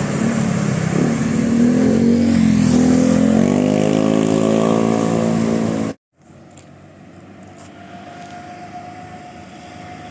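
A large vehicle engine, most likely a passing bus, runs loud and then revs, its pitch rising over a couple of seconds. About six seconds in the sound cuts off abruptly. A much quieter steady engine hum follows.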